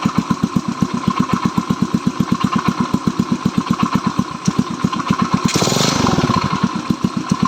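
Stels Kapitan engine idling, with an even beat of about eight firing pulses a second. A brief rush of hissing noise comes in about five and a half seconds in.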